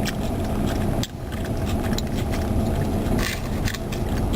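Car engine idling steadily, heard from inside the cabin, with scattered small clicks and crackles of someone chewing crunchy jalapeño-topped fries and handling the container, and a brief rustle about three seconds in.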